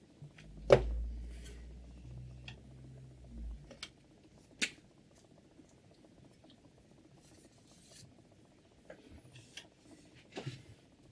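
Hard objects being handled: a sharp click just under a second in, a second sharp click a few seconds later, and scattered light taps and short rustles between them.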